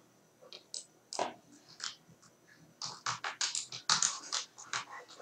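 Computer keyboard keys clicking as a name is typed. There are a few scattered keystrokes at first, then a quick run of them in the second half.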